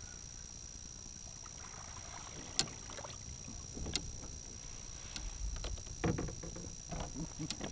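Scattered sharp clicks and knocks of fishing gear and the kayak hull while a small bass is played on a baitcasting rod and landed, with a denser cluster of knocks and rustling about six seconds in as the fish is brought aboard. A faint steady high whine runs underneath.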